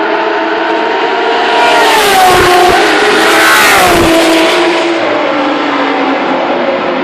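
Historic touring race cars at high revs speeding past, their engines and tyres loudest about two and four seconds in, with the engine pitch falling each time a car goes by.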